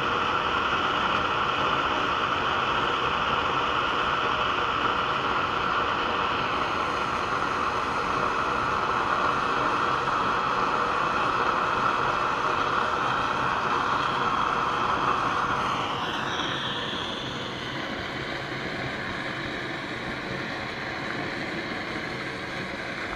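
Pressurized methylated-spirit (alcohol) stove burning under a pot of water, a steady rushing hiss from its flame jets. About sixteen seconds in the sound drops in level and changes.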